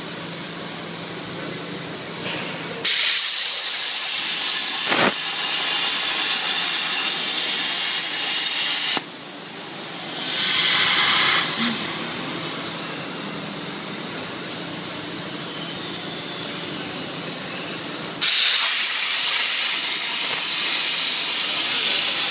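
CNC plasma cutting torch cutting steel plate: a loud, steady hiss of the plasma arc that starts abruptly about three seconds in, stops suddenly about nine seconds in and starts again about eighteen seconds in. Between cuts a quieter steady hiss continues.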